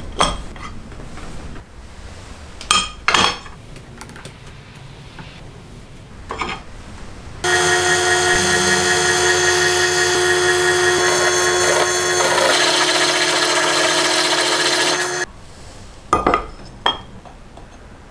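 A few sharp metal clicks and clinks of parts being handled, then a drill press runs steadily with a whine for about eight seconds, drilling through an aluminium plate, and cuts off suddenly. A couple more clicks follow.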